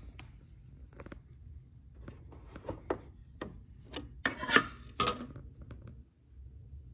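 Hard plastic clicking and scraping as the side panel of a Playmobil Enterprise toy's engineering hull is taken off and handled: a string of sharp clicks, with a louder rasping scrape about four and a half seconds in.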